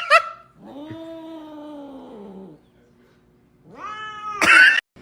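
A cat giving a long, low, drawn-out meow that slowly falls in pitch, then a shorter, louder rising cry near the end.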